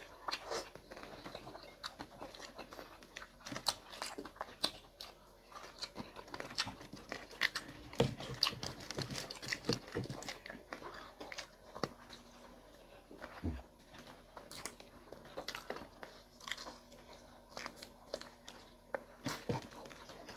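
Close-miked eating: people biting, chewing and crunching food, with many irregular short clicks, crackles and mouth smacks.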